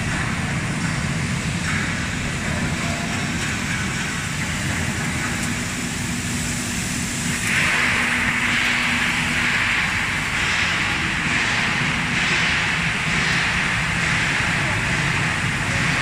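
Commercial bubble-type fruit and vegetable washing machine running: steady motor hum under the rushing churn of its air-bubbled water tank. About halfway through, a louder rushing hiss comes in and goes on with a gentle pulsing.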